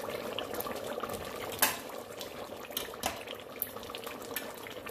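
Metal spoon stirring liver masala as it bubbles in an aluminium pressure cooker, over a steady bubbling sizzle. The spoon knocks against the pot's sides several times, loudest about a second and a half in.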